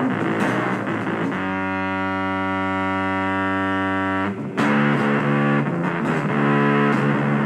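Music: a distorted electric guitar through effects, a note held for about three seconds, then a short break and the playing moves on to changing notes.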